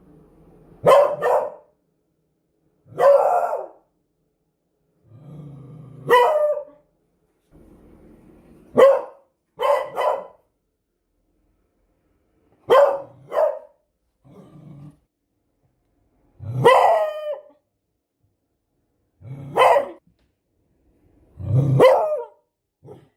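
Beagle barking: about a dozen loud barks spaced one to three seconds apart, some in quick pairs and a couple drawn out into short bays of about a second, with a faint low growl before some of them.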